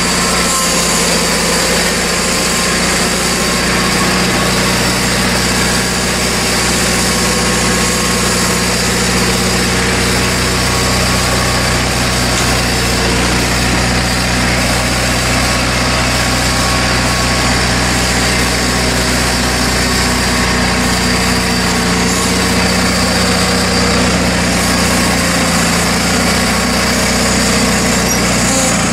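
John Deere garden tractor's engine running steadily and loud, heard from the driver's seat as the tractor backs out.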